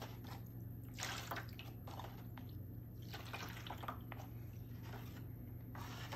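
Liquid fabric dye splashing and dripping in a foil tray as a cup scoops it up and pours it back over pussy willow branches, in a few short splashes over a low steady hum.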